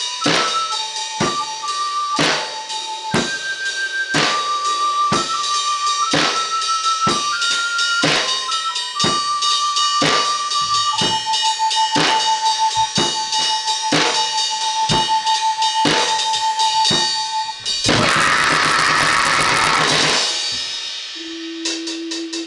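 Drum kit played at a steady beat of about two hits a second, under a thin high electronic tone that steps between a few notes. About 18 seconds in, a dense wash of noise lasts around two seconds, and near the end a low held tone comes in with rapid ticking.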